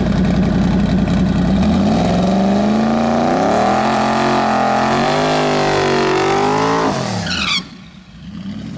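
Boosted Ford Coyote V8 in a Fox-body Mustang drag car running loudly at the line. From about two seconds in, the revs climb and waver as the rear tires spin in a smoky burnout. Near the end the engine note drops and cuts off sharply.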